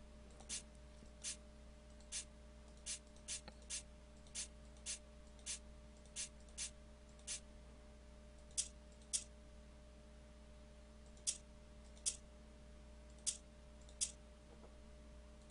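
Computer mouse clicking, each click placing a step in a software step sequencer's grid. There are about twenty single clicks: fairly quick and even for the first seven seconds, then spaced out in pairs. A faint steady electrical hum runs underneath.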